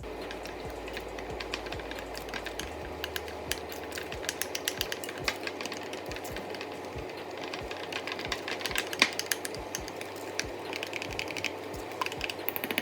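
A spoon or whisk stirring a thick mayonnaise-based sauce in a bowl: many quick, irregular clicks and scrapes against the bowl.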